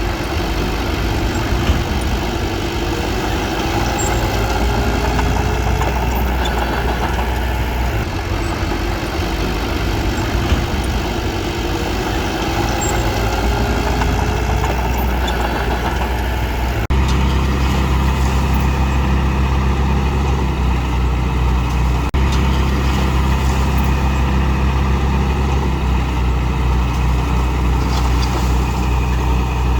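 Diesel engine of heavy earth-moving machinery running steadily. About halfway through, the sound cuts abruptly to a steadier, lower engine drone.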